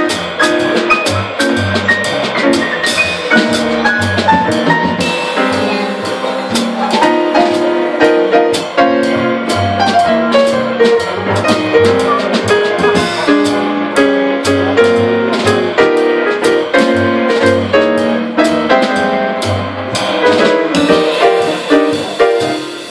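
Live jazz from piano, double bass and drum kit: a piano line over a walking double bass, with the drums keeping steady time on the cymbals.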